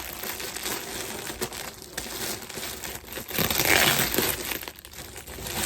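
Packaging crinkling and rustling as a garment is handled, loudest in a burst about three and a half seconds in.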